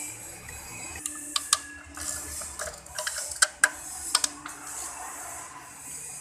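Sharp metal clicks and clinks from hands working with parts and tools in a pickup's engine bay. A cluster of separate taps falls between about one and four and a half seconds in.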